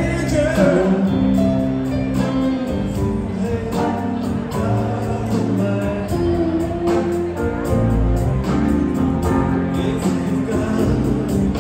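Live rock band playing: electric guitars, bass, drums and keyboard, with singing over a steady drum beat.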